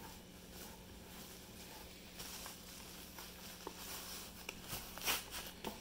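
Quiet rustling and light knocks of cloth drawstring bags and packing material being handled in a cardboard box. The rustling grows busier in the second half, with the loudest rustle about five seconds in.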